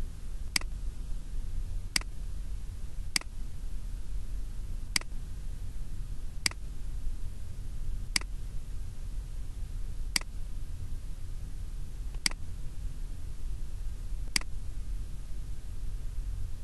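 Computer mouse button clicking nine times at uneven gaps of one to two seconds, each a short sharp click, over a steady low hum.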